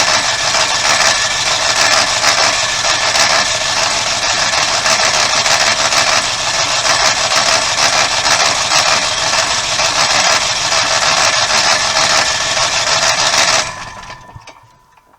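RV generator's engine being turned over by its starter for a long stretch without catching, a steady loud mechanical whir that stops near the end and dies away.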